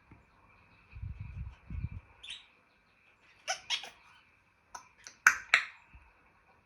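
African grey parrot making a low rumbling noise about a second in, then a series of sharp clicks and short squeaky chirps in two quick clusters.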